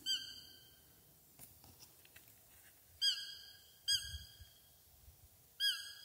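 Four high, whistle-like roe deer fiep calls, each a short upward flick that settles into a held tone. One comes right at the start and three more follow in the last three seconds, two of them close together.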